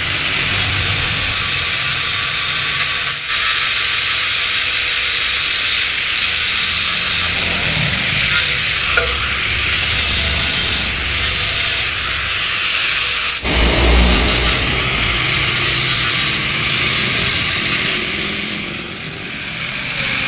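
Electric power tool running steadily against the sheet metal of a Yamaha RX-King exhaust muffler being reworked, with a high thin whine over a noisy rasp. The sound breaks briefly about three seconds in and again about thirteen seconds in.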